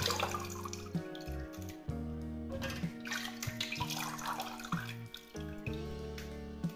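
Tap water running and splashing into a steel pot while pieces of food are rinsed and squeezed by hand, heard under background music with held, slowly changing notes. The splashing swells at the start and again about three to four seconds in.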